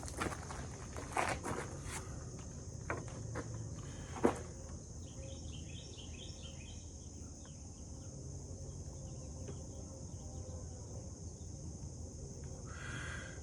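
Insects droning at a steady high pitch, with rustling and a few sharp clicks in the first four seconds and a brief chirping call about six seconds in.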